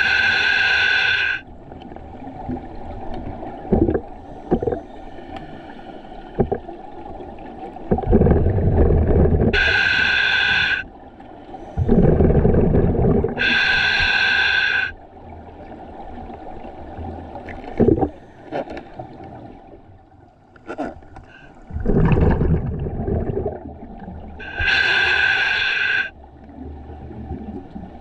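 A scuba diver breathing underwater through a regulator: several breaths, each with a hissing, whistling draw through the regulator and a rumbling, gurgling surge of exhaled bubbles, with quieter stretches between.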